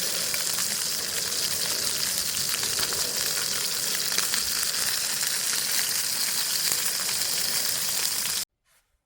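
Beef burger frying, a steady loud sizzle with fine crackling that cuts off suddenly about eight and a half seconds in.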